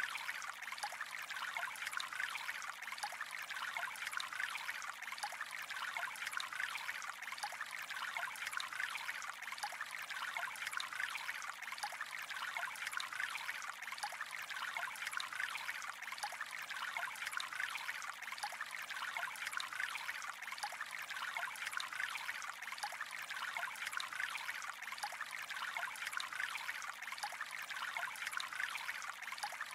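Calm flowing water, a steady, even trickle of running water that does not change in level.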